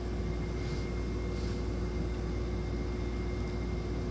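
Steady background hum and hiss with a faint constant tone, unchanging throughout.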